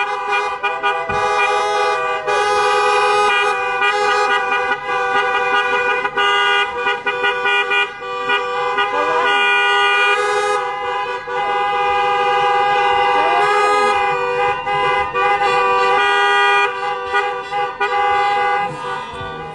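Several car horns honking together, celebratory honking from cars driving past, held almost without a break and thinning out near the end.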